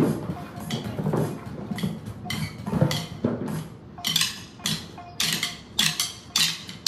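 Wooden drumsticks tapping in a cardio drumming class: scattered taps at first, then from about four seconds in a steady beat of sharp clicks, a little under two a second. Music plays underneath.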